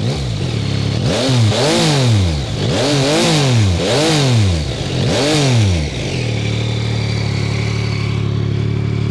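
2022 Yamaha XSR900's 890 cc inline three-cylinder engine revved by hand at standstill: a quick run of throttle blips, each rising and falling in pitch, then settling to a steady idle about six seconds in.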